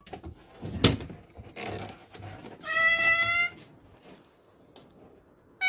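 A sharp click about a second in, then a cat's single drawn-out meow about three seconds in.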